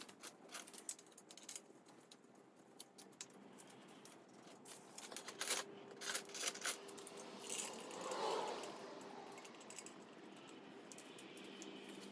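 Light metallic clicks and rattles of steel engine parts being handled, as main bearing caps and their bolts are set onto an engine block over the crankshaft, with a few louder clinks midway.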